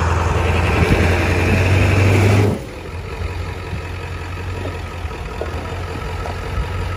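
Pickup truck engine revving hard under load while it tows an enclosed trailer through loose dirt. About two and a half seconds in it drops suddenly to a quieter, steady idle.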